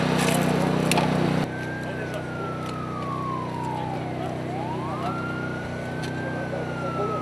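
A steady engine hum with a click about a second in, cut off after a second and a half. Then an emergency vehicle siren wails, its pitch sliding slowly down, up and down again over a low steady engine drone.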